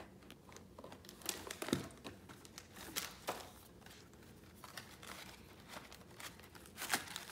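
Plastic packaging crinkling and cardboard rustling as a child's hands rummage through an open cardboard shipping box, in short irregular bursts with a few louder crackles.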